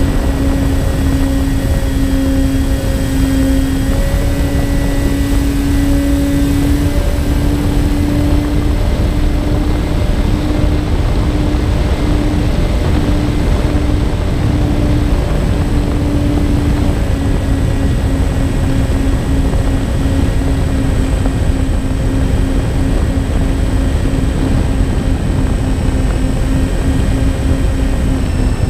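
Twin electric motors and propellers of a MyTwinDream FPV plane in cruising flight, heard from the onboard camera. A steady propeller hum swells and fades in a repeating pulse that quickens about two-thirds of the way in. Wind rushes over the microphone throughout.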